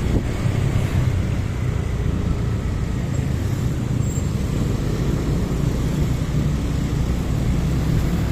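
Steady low rumble of motorbike engines and road noise while riding in slow town traffic among other motorbikes and scooters.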